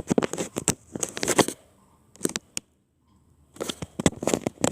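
Camera handling noise close to the microphone: fingers rubbing and clicking on the camera, in quick irregular strokes, with a near-silent pause of about a second a little past halfway.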